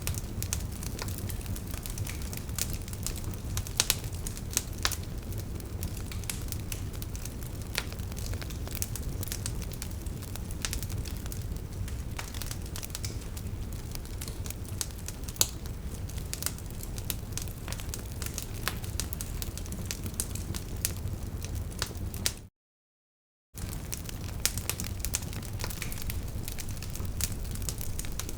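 Log fire burning in a fireplace: a steady low rumble of flames with frequent sharp crackles and pops from the wood. The sound cuts out completely for about a second near the end.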